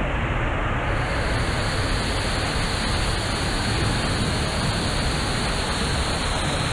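Steady rush of a waterfall pouring off a rock wall into a pool, heard close up.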